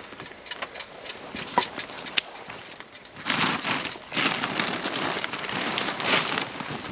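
A few light clicks and snaps, then, from about three seconds in, dense rustling and crunching as a person crawls into a canvas tarp shelter and sits down, clothing and tarp brushing over forest litter.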